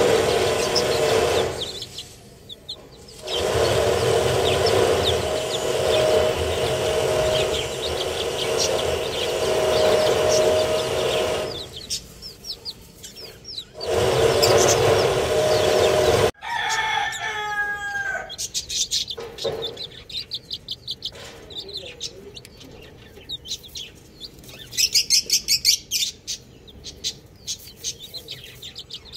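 Baby chicks peeping, short high peeps over a loud steady low hum in the first half. After a cut about halfway there is a louder call with falling pitch, then scattered peeps and a fast run of high chick peeps near the end.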